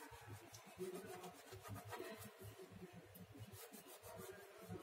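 Faint, irregular rubbing of a wet cleaning wipe scrubbed over a glass-top stove.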